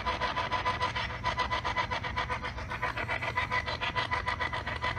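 Rapid, even pulsing static, about eight pulses a second, over a steady electronic tone, from ghost-hunting electronics left running.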